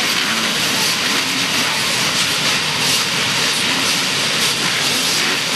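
Steady, loud rushing hiss of off-road racing engines on the trail, with no single engine standing out and faint engine tones rising and falling underneath.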